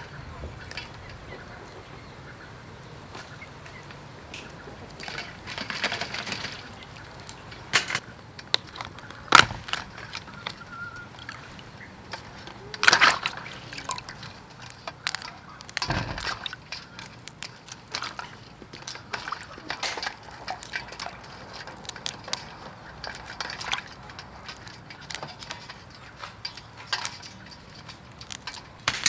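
Mud crabs being cleaned by hand in a stainless steel bowl of water: intermittent splashing and sloshing, with a few sharp knocks of shell against the bowl.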